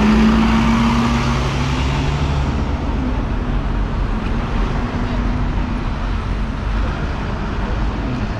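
Double-decker bus engine humming as the bus pulls past close by, fading over the first few seconds into steady city traffic noise.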